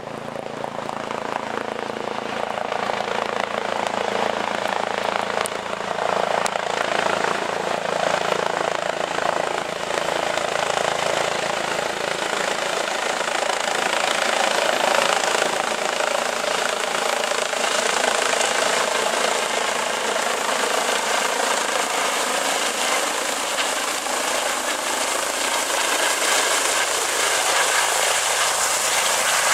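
Rescue helicopter landing: steady rotor and turbine noise that swells over the first few seconds and stays loud.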